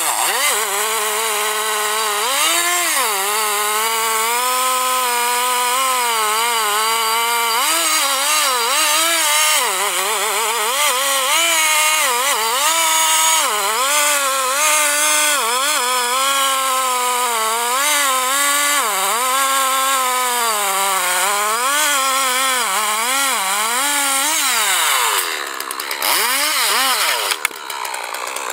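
Two-stroke chainsaw cutting into a large tree trunk under load, its engine pitch repeatedly dipping as the chain bites and recovering. About 25 seconds in, the engine winds down, then revs up briefly a few times.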